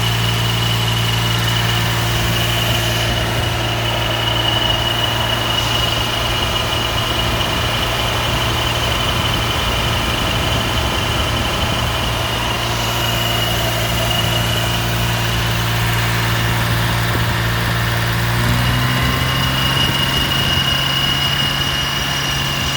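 Jaguar E-Type engine running steadily at raised revs, with a steady high-pitched belt squeal from the water pump drive. The uploader says this squeal sets in above about 2400 RPM. The engine note rises slightly about three-quarters of the way through.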